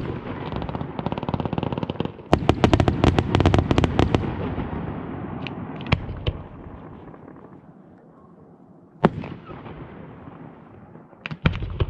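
Fireworks going off: a fast run of sharp crackling bangs about two to four seconds in over a rumbling echo that slowly dies away, then single loud bangs about six and nine seconds in and two more close together near the end.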